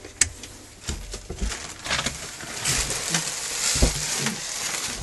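Rustling and handling noise with scattered clicks and knocks, a stronger thump a little under four seconds in.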